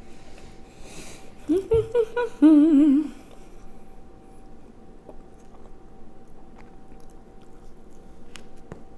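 A woman humming a few short "mm" notes and then a longer one with a wavering pitch, about two seconds in, with soft chewing and mouth sounds of eating around it.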